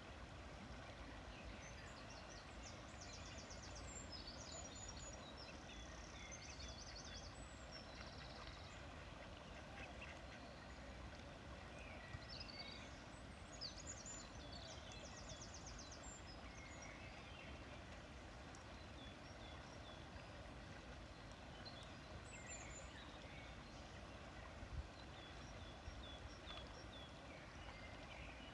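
Shallow river flowing steadily over stones, with soft, high peeps from ducklings and a few bursts of rapid, high trilling calls from small birds.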